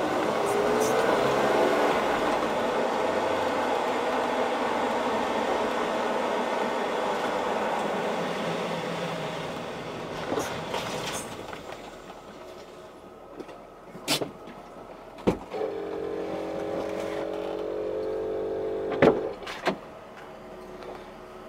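Road and tyre noise heard from inside the cargo area of a BMW E39 Touring on the move, dying down about halfway through, with about five sharp knocks from the rear of the car over bumps. The knocks are the unusual banging being traced to the left rear shock mount.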